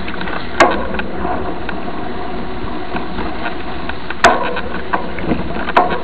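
Mountain bike rolling along a dirt road, heard from a camera mounted on the bike: a steady rumble of tyres and wind, broken by three sharp knocks as the bike jolts over bumps, about half a second in, near four seconds and near the end.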